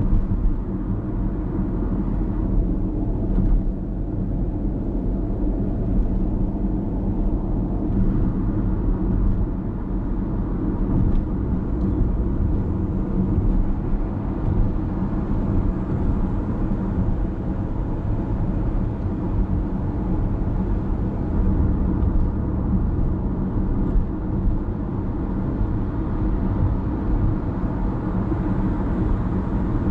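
Steady low road rumble of a car cruising along an expressway.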